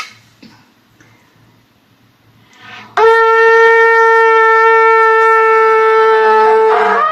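Shofar blown in one long, steady, loud note of about four seconds, ending in a quick upward break in pitch.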